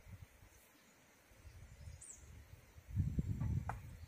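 Outdoor mountain ambience: a low, uneven gusty rumble of wind on the microphone, loudest about three seconds in, and a single short high bird chirp about two seconds in.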